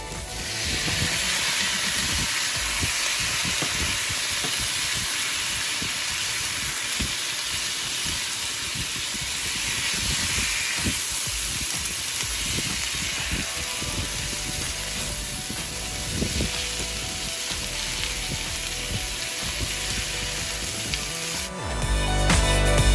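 Ackee and jerk-seasoned jackfruit sizzling steadily in a hot cast-iron skillet as they are stirred, under quiet background music. The music becomes loud near the end.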